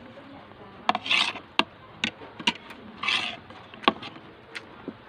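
Eating utensils clicking and scraping against a plate during a meal: several sharp clinks and two short scrapes, about a second in and about three seconds in.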